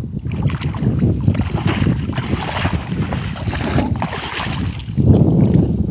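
Shallow paddy water sloshing and splashing as someone wades through it and pushes a tin box fish trap down into the water, with a louder splash about five seconds in.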